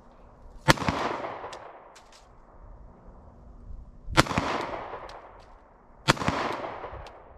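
Three slow, deliberate 9mm handgun shots, the first two about three and a half seconds apart and the third about two seconds later, each followed by a fading echo.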